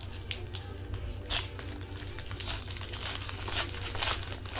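Trading card pack wrappers being torn and crinkled by hand: a run of short rustles, the loudest about a second in and again near the end.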